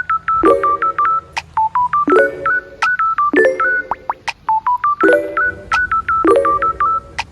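Background music: electronic, with quick, short beeping notes that step up and down in pitch, over a chord struck about every one and a half seconds.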